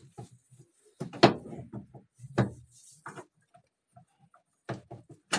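Hand screwdriver working screws out of a Super Asia washing machine's plastic top panel: scattered clicks and knocks of the tool against the screws and plastic parts, loudest about a second in and again near the end.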